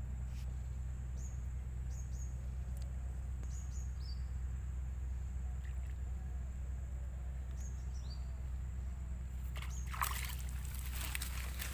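Short, sharp bird chirps over a steady low hum, then, from about nine and a half seconds in, a burst of water splashing as a hooked fish is pulled up out of the pond.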